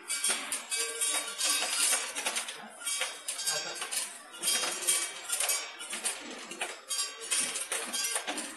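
Pharmaceutical tablets rattling on the vibrating stainless-steel track of a tablet deduster and sliding down its chute. It is a dense, uneven metallic clatter of many small clicks that swells and dips in loudness.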